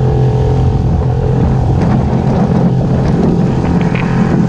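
A small fishing boat's engine running steadily under way, a constant low drone, with water rushing along the hull.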